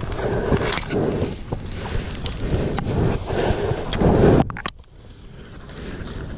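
Dry grass rustling and crackling as a hand pushes through a dense tussock close to the microphone. It stops sharply about four and a half seconds in, leaving only a faint hiss.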